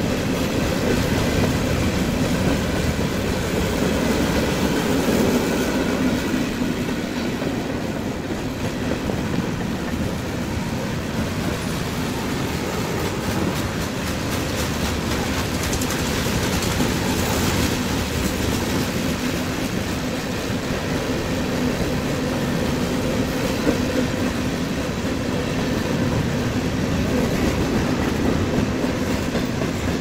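Covered hoppers and tank cars of a CSX manifest freight train rolling steadily past, their wheels running along the rails.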